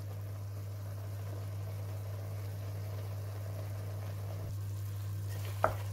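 Pot of chopped spinach simmering on a stove, cooking down its water, with soft bubbling over a steady low hum. A short tap near the end.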